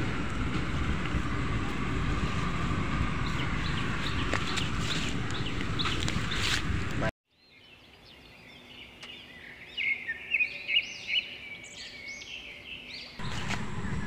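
Steady outdoor background noise with faint scattered clicks and rustles. About seven seconds in it cuts out abruptly, and after a near-silent gap a string of quick, high bird chirps plays for about three seconds before the background noise returns.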